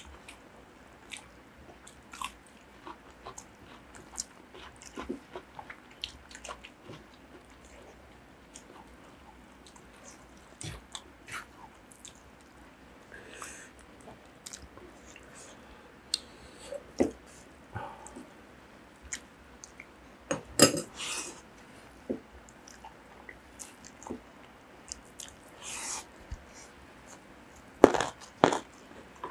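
Close-miked wet chewing and mouth clicks of people eating rice and curry by hand, with a few louder crunchy bites of raw vegetables, the loudest near the end.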